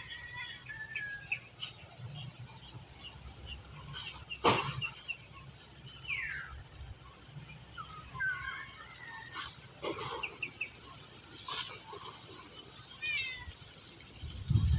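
Birds chirping in short calls and quick falling notes, with a few sharp knocks, the loudest about four and a half seconds in.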